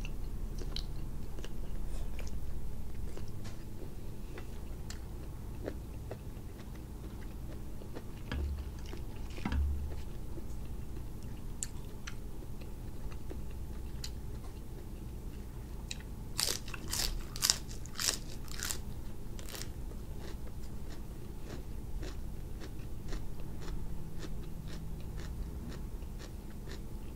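Close-up chewing of grilled cuttlefish, with many small wet mouth clicks. About sixteen seconds in comes a run of loud, crisp crunches: bites into a raw romaine lettuce leaf.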